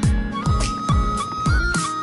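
Background music with a steady beat about twice a second under a held melody line that bends between notes.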